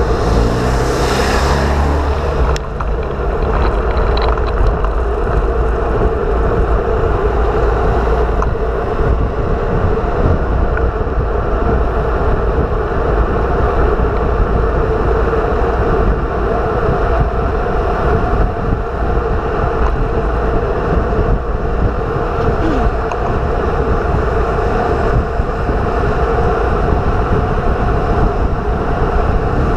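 Loud, steady wind rushing over the microphone of a bike-mounted camera on a fast downhill ride, a dense low rumble, with a brief louder rush in the first two seconds.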